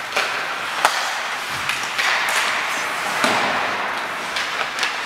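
Ice hockey play: skates scraping across the ice, with several sharp clacks of sticks hitting the puck, the sharpest about a second in.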